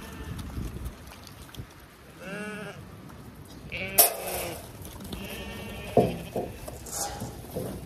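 Zwartbles sheep bleating, several short calls from the flock gathered at a feed trough. A sharp knock about four seconds in is the loudest moment.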